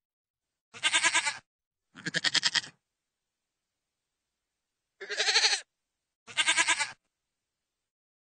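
Goat bleating: four short, quavering bleats, two in the first three seconds and two more from about five seconds in, with dead silence between them.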